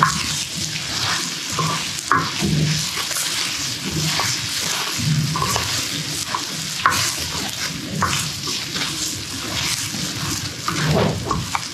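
Kimchi-and-pork fried rice sizzling in a hot pan while it is stirred and turned over. A constant sizzle runs under irregular scrapes and taps of the utensil against the pan.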